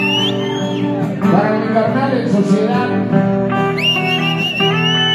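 Acoustic guitar music: sustained, strummed chords. A high, wavering, gliding melody line over the chords stops about a second in and comes back near the end.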